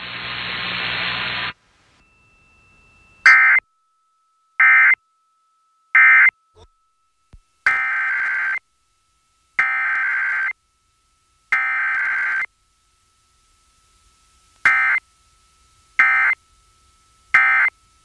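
Emergency Alert System SAME digital data bursts from an FM station's EAS encoder. First come three short end-of-message bursts, then three longer header bursts about two seconds apart, then three short end-of-message bursts again: the codes of a Required Weekly Test.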